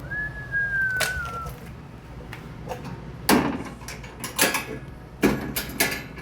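A brief squeak that falls slightly in pitch, then a string of sharp knocks and clunks about a second apart.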